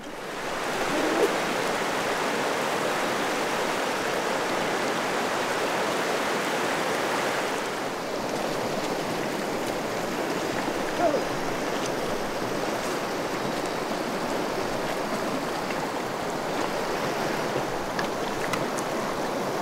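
Steady rushing of running water in a stream, starting abruptly and holding even throughout, with two brief faint rising whistles, about a second in and about eleven seconds in.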